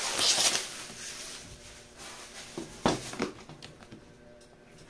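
Plastic wrapping crinkling as it is pulled and handled off a cardboard product box, loudest in the first half second. About three seconds in there are two light knocks.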